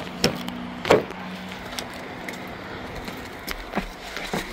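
A car door being opened and someone climbing into the seat: two sharp clunks in the first second, then softer knocks and rustling near the end. Under it runs a steady hiss of rain on the car and pavement.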